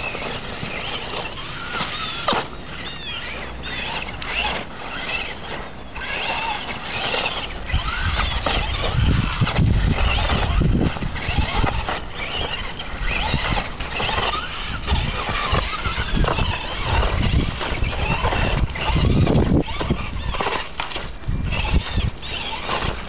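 A Pug/Boston Terrier mix squealing and whining excitedly, mixed with the whir of a Traxxas Stampede RC truck's motor rising and falling. Heavy low rumbles come and go, strongest about a third of the way in and again near the end.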